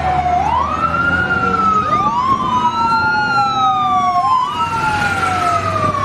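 Fire-engine siren wailing: each wail rises quickly and then falls slowly, about every two seconds, with wails overlapping one another over a steady low hum.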